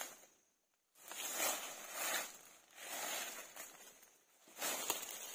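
Dry leaves and undergrowth rustling and crackling as a person pushes through forest brush and steps on leaf litter, in several uneven swells. The sound drops out briefly near the start.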